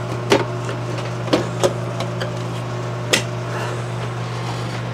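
Sharp knocks and clicks from the HP RP5800 desktop's case cover being handled and fitted back onto the computer, five or so spread over a few seconds, over a steady low hum.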